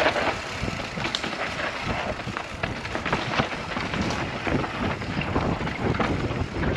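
Mountain bike riding down a dry, dusty dirt trail: tyres rolling and crunching over dirt and loose stones, with many irregular clicks and rattles from the bike, under wind on the microphone.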